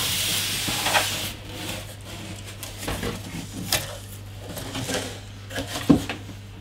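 Cardboard shipping box being pulled up and off a PC case packed in foam end caps: a scraping rush of cardboard for about the first second, then scattered rustles and light knocks as the box is handled and set aside.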